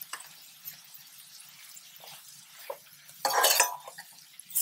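Slotted metal spoon stirring chicken and vegetables in a stainless steel pan: a few light clicks, then a loud scrape and clatter for about half a second a little over three seconds in.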